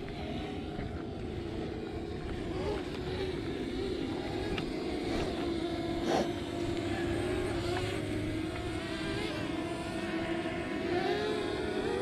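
DJI quadcopter drone's propellers buzzing in flight, a steady hum whose pitch wavers slightly as it manoeuvres, over low wind rumble on the microphone. A sharp click about six seconds in.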